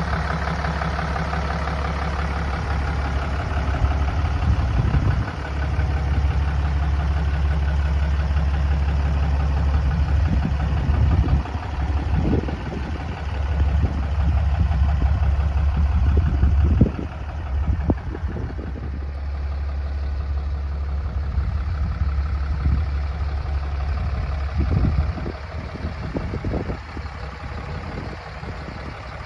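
2008 Sterling Bullet 5500 dump truck's 6.7L Cummins inline-six diesel idling steadily, with a few short louder rushes now and then.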